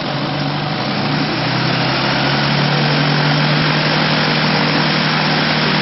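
Gyrocopter's engine and propeller running loud, with a steady rush of air. The engine pitch rises a little in the first second or so, then holds steady.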